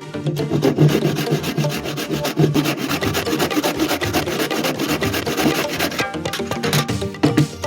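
A hand tool rasping against wood in fast, continuous strokes that stop about six seconds in, with background music.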